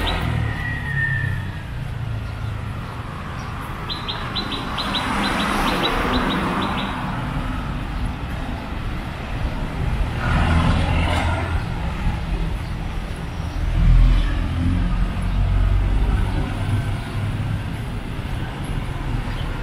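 Road traffic going by, one vehicle passing close about 14 seconds in, with a small bird's rapid trill of high chirps about four seconds in.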